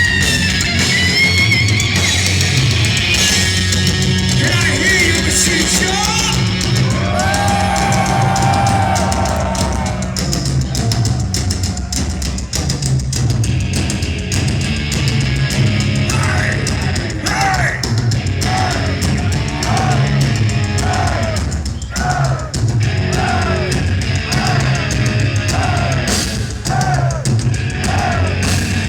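Heavy metal band playing live: distorted electric guitars, bass and drum kit. A bending lead line wavers through the first part, and later a short falling figure repeats about once a second over the pounding rhythm.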